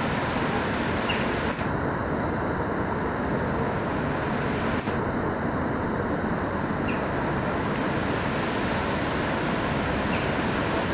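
Steady outdoor rushing noise with no distinct events: an even wash of sound, like flowing river water, wind or distant traffic, that does not change in level.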